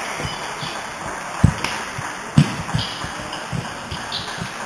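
Badminton rally: racket strikes on the shuttlecock and players' footfalls on a wooden sports floor, with two heavy thuds about a second apart near the middle.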